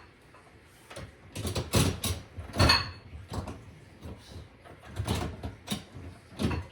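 Knocks, clunks and scrapes from a built-in dishwasher being handled and fitted back under a countertop, about eight separate hits spread over several seconds, with one short squeak about two and a half seconds in.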